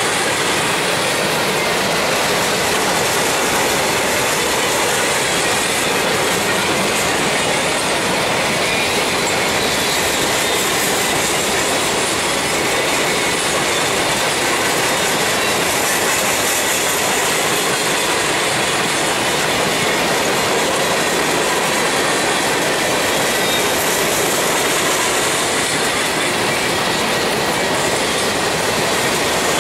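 Empty coal hopper cars of a freight train rolling past: a steady, loud din of steel wheels on rail with clickety-clack and a faint high wheel squeal.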